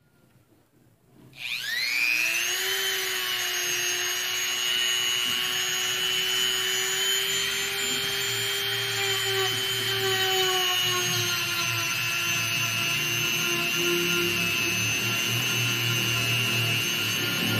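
Handheld electric rotary tool (Dremel-type) spinning up about a second in, then running with a steady high whine as its small grinding bit roughs the rubber around a puncture in a motorcycle tyre tube, preparing it for a patch.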